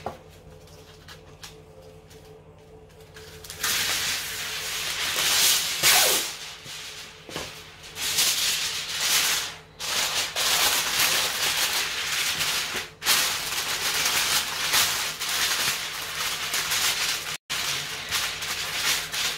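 Aluminium foil crinkling and rustling, starting about three and a half seconds in, as it is handled and pressed over a roasting pan to cover it.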